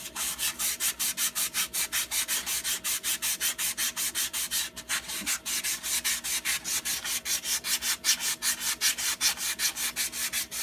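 Hand sanding of a metal exhaust pipe end: quick back-and-forth rasping strokes, about five a second, with a brief pause near the middle and an abrupt stop at the end. The pipe is being sanded down so a new muffler will slide onto it.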